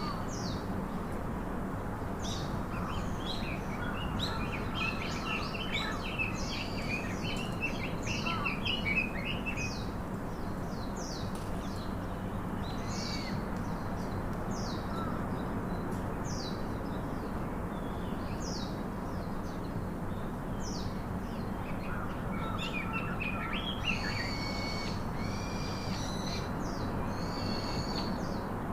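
Small birds chirping and twittering: a steady run of short, high, downward-sweeping chirps, with two busier bouts of chattering, one in the first third and one near the end, over a constant background hiss and low hum.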